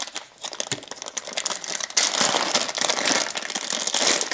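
Clear plastic zip bag crinkling as fingers work it open and handle the adapter ring inside, louder from about two seconds in.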